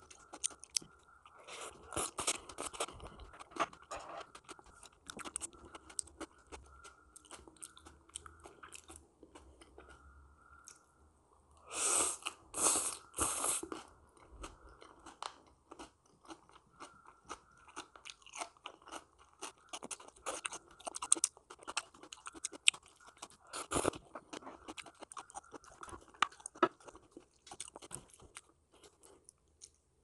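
Close-up chewing and crunching of crisp raw food, a long run of small crunches with a louder cluster of three crunchy bites about twelve to fourteen seconds in.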